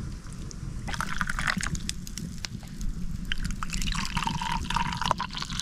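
Hot cloudberry tea being poured from a kettle's spout into a mug, in two pours: a short one about a second in and a longer, steady one from about three and a half seconds.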